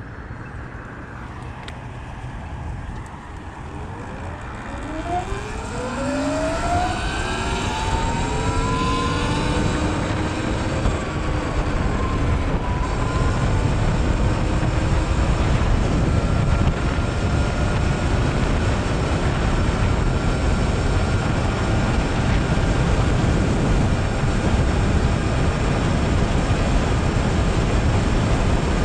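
Sur-Ron electric dirt bike's electric motor whining higher and higher as the bike speeds up for several seconds, then holding a steady whine at cruising speed under a growing rush of wind and tyre noise.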